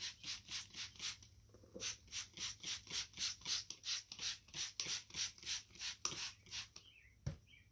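Hand trigger spray bottle squirting soapy water in quick repeated hisses, about three a second, with a short break about a second in and stopping at about six seconds: a soapy-water leak check around a tire bead and valve stem. A single knock near the end.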